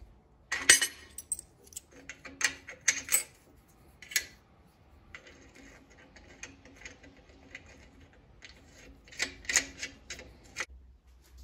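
Metal parts clinking and tapping as a cast aluminum fence bar is set onto a drill press table and washers and nuts are fitted over its bolts. The sharpest clank comes about half a second in, with a cluster of quick clinks near the end.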